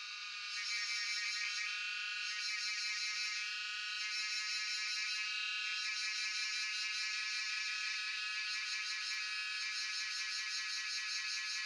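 A chorus of cicadas singing: a dense, high, rapidly pulsing buzz that swells slightly about a second in and then holds steady.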